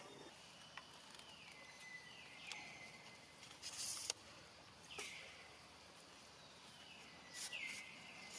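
Faint outdoor wildlife calls, three times: a hissy downward sweep that settles into a held high whistle lasting about a second. A louder hissy burst comes about 4 seconds in, with a few sharp clicks between.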